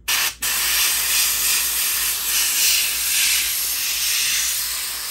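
Gravity-feed airbrush spraying paint: a steady hiss of air that starts suddenly as the trigger is pressed, breaks off for an instant, then runs on evenly.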